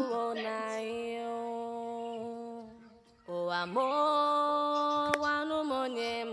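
Slow music of long held notes: one held note, a brief break about three seconds in, then a note that steps up in pitch, holds, and drops back near the end.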